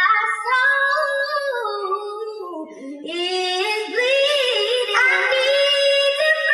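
Intro of a rap beat: a high sung vocal melody that glides and wavers, with no drums or bass under it. It sinks lower and softer near the middle, then swells back fuller.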